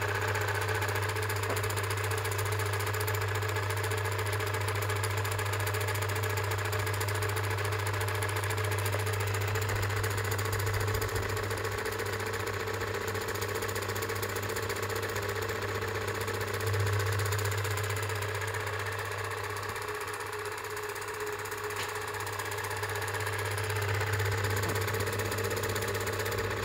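Kodak Instamatic M66 Super 8 projector running steadily: a low motor hum with mechanical chatter from the film transport, dipping slightly in level for a few seconds toward the end.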